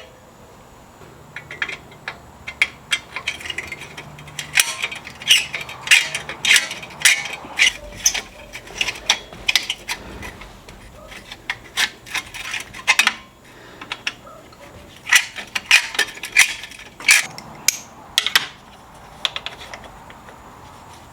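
Socket ratchet clicking in short quick runs, with clinks of metal tools, while loosening the exhaust heat shield fasteners.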